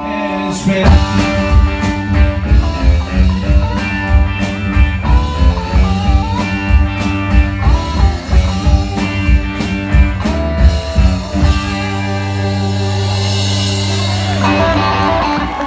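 Live rock and roll band playing electric guitars, bass and drum kit to a steady beat. A little past two-thirds of the way through, the beat stops under a long held chord with a cymbal wash, and the band hits again near the end.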